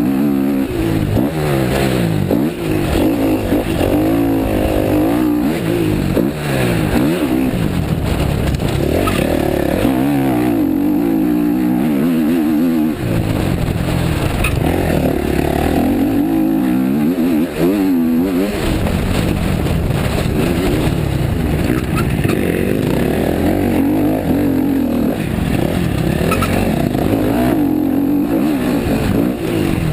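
Motocross dirt bike engine revving hard and dropping back over and over as it is ridden round a dirt track, heard close up from on the rider. The engine pitch climbs and falls repeatedly, with short dips between climbs as the throttle is rolled off.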